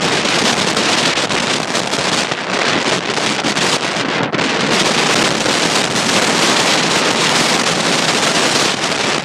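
Hurricane wind buffeting the phone's microphone: a loud, continuous rush broken by rapid crackles.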